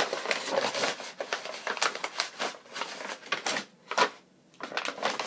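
Cardboard wrapping-paper tube crinkling and crackling as it is squeezed and bent between two hands, with a sharp crack about four seconds in, then a brief pause.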